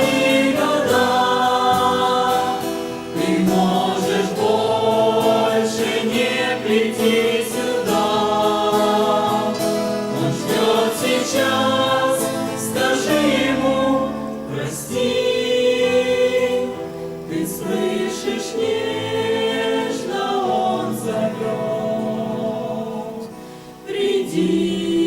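A choir singing a Christian song, with a short drop in level near the end.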